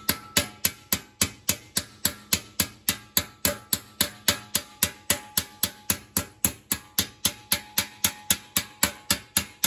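Hand hammer peening over a rivet that fixes a stainless steel reinforcing plate inside a thin steel cuirass. The blows come fast and evenly, about four a second, with a metallic ring hanging between them.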